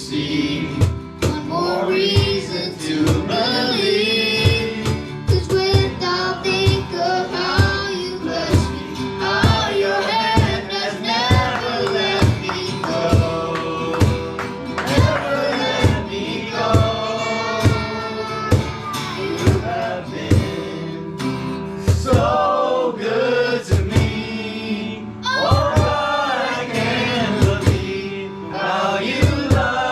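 Worship song with men and women singing together over band accompaniment with a steady beat.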